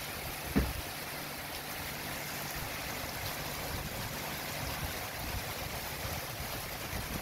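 Steady rush of storm wind and rain, with a single thump about half a second in.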